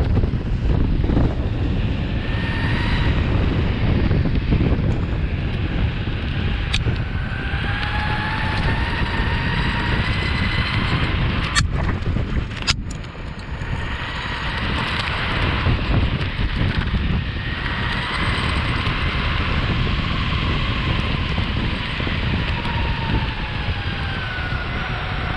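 Meepo Hurricane electric skateboard riding at speed: a motor whine that rises and falls with speed over the rumble of wheels on pavement and wind on the microphone. Two sharp clacks come about halfway through.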